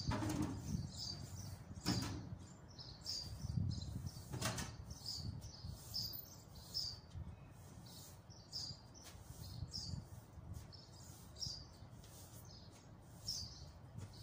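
Broom sweeping sand and dust across a tiled floor: short rhythmic swishes, about one to two strokes a second, with a few knocks in the first half, over a low steady rumble.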